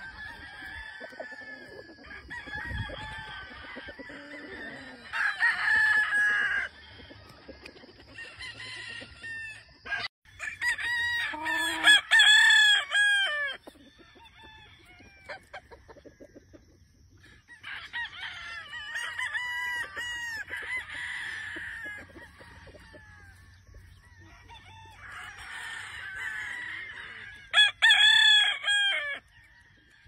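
Gamefowl roosters crowing again and again, about four long bouts with quieter gaps between, the loudest about a third of the way in and near the end; at times two or more birds crow over one another.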